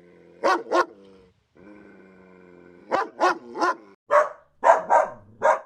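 Dog barking: two quick barks about half a second in, then a run of six barks from about three seconds in, coming faster toward the end.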